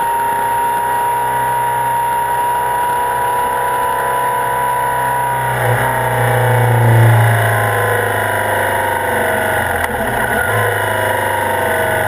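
BMW R65 flat-twin motorcycle engine running under way, with wind noise. The engine note steps down about halfway through and changes again near the end.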